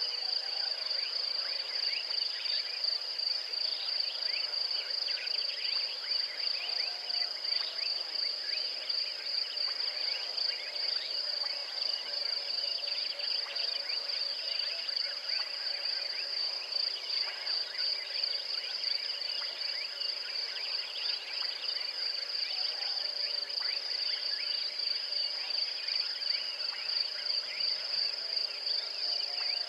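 Evening insect chorus: a steady, high-pitched cricket trill that pulses slightly, over a dense layer of short overlapping chirps.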